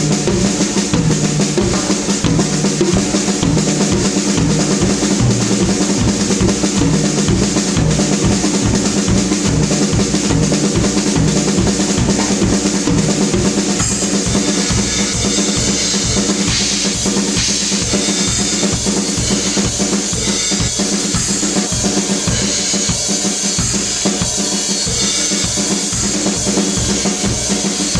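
Drum kit played continuously, with a fast, steady bass drum pattern under snare and cymbals; the cymbals get brighter about halfway through.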